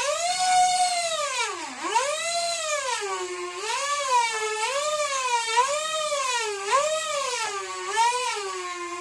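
Whine of the 30 mm electric ducted fan on an indoor Sky Dancer RC model plane in flight. Its pitch swings up and down about once a second as the throttle changes, with one deep dip about two seconds in.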